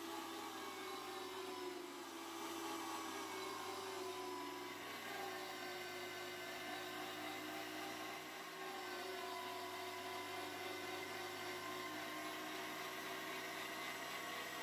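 Electric meat grinder motor running steadily under load as it forces stiff cookie dough through the plate, a continuous whir whose pitch wavers slightly.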